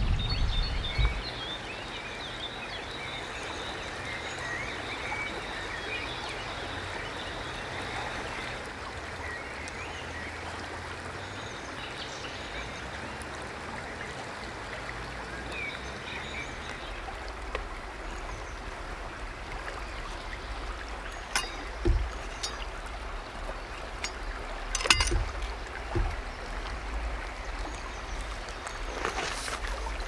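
River water flowing steadily over a shallow bed, with birds chirping now and then. In the second half a few sharp knocks come through, the loudest about 25 seconds in.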